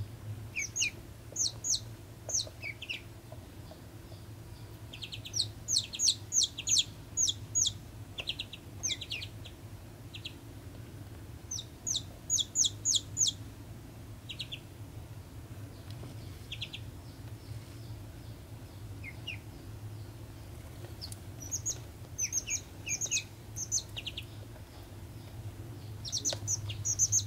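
A young chick peeping: short, high cheeps in quick runs of several at a time, with pauses of a few seconds between runs and a longer lull in the middle.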